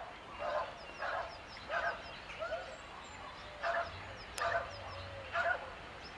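An animal calling over and over: seven short, loud calls in about six seconds, with a pause near the middle. Small birds chirp thinly and high in the background.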